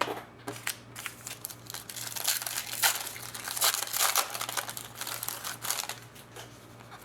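Crinkling and rustling of a trading-card pack wrapper being handled and torn, busiest in the middle and dying down near the end, over a faint steady hum.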